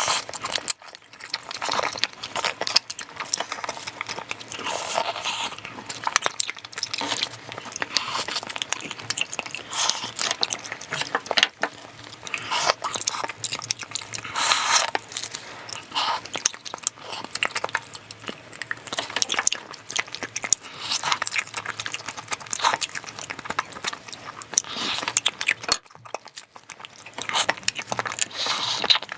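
Close-miked chewing and mouth sounds of someone eating pork back-bone stew with rice: continuous irregular wet smacks and crunches.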